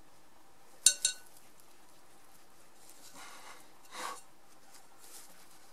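Two sharp clicks about a second in, then a soft rustle of dried lavender buds being scooped by hand into a small cotton fabric sachet near the end.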